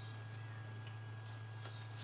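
Steady low electrical hum with a faint, steady high whine, and a few faint small clicks.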